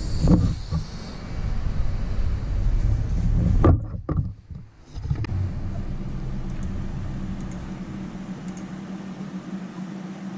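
Low rumbling camera-handling noise, then after a short drop-out about four seconds in, a steady low hum, likely from the running desktop computer.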